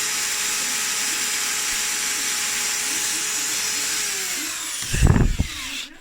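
Electric drill spinning a heater-fan motor's armature at a steady speed while a file scrapes its copper commutator with a dense hiss, truing the unevenly worn commutator. About four seconds in the drill is released and winds down with a falling pitch, followed by a loud knock.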